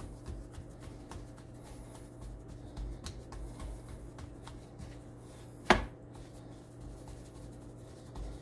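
Fingertips pressing and patting pizza dough on a floured wooden cutting board: soft, irregular dabs and taps over a steady low hum. A single sharp knock a little past the middle stands out above the rest.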